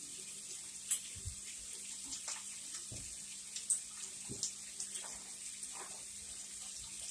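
Bacon frying in a pan: a steady sizzle with scattered short pops and crackles.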